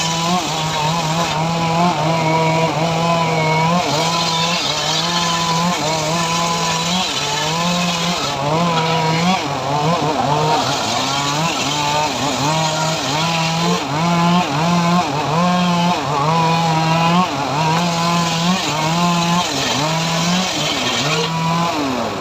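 Engine-driven portable sawmill cutting a sengon log, running loud and continuously, its pitch dipping and recovering over and over as the blade works through the wood.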